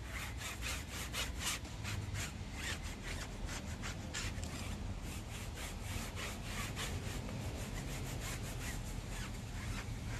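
A sponge pad scrubbed back and forth over a car's alloy wheel spokes and rim, in quick rasping strokes, about three or four a second.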